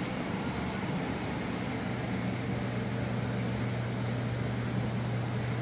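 A steady low mechanical hum over an even hiss, getting a little stronger about two seconds in.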